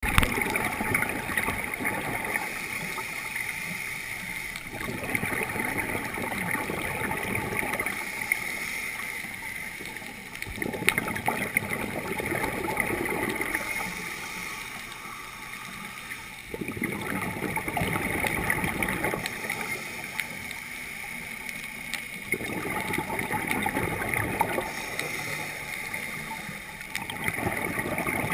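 Scuba diver's regulator breathing, heard underwater: a burst of exhaled bubbles gurgling about every five to six seconds, six times in all, with quieter inhale stretches between over a steady hiss.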